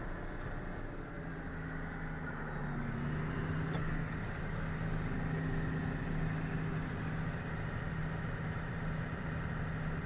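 Combine harvester running under load while harvesting corn with a corn head, heard from inside the cab as a steady drone whose pitch steps up slightly about three seconds in.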